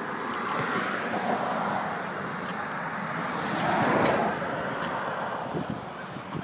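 Road traffic: a steady hiss of passing vehicles that swells as one goes by about four seconds in.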